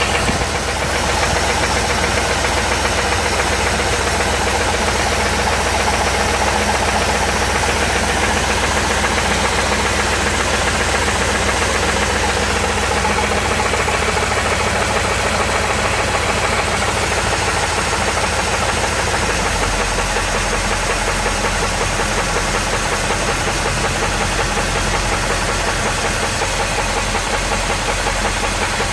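Jeep Grand Cherokee WJ's 4.7-litre V8 running steadily with a continuous rhythmic knock from the engine.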